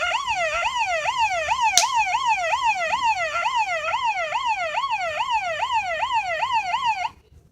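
Electronic yelp siren, its pitch sweeping quickly up and down about three times a second and cutting off abruptly near the end. A single sharp click comes about two seconds in.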